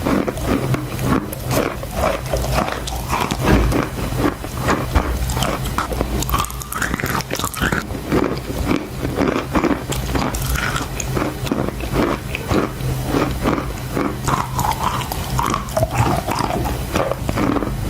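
A person chewing crunchy chalk close to the microphone: a continuous, irregular crackling crunch of bites and chews.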